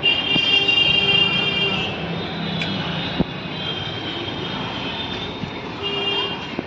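Street traffic noise: passing vehicles, with a held high tone for about a second and a half near the start and again briefly near the end.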